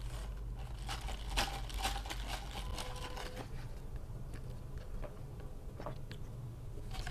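Plastic straw knocking in a sealed plastic cup of milk tea, then milk tea sipped through the straw, with scattered soft clicks and small knocks.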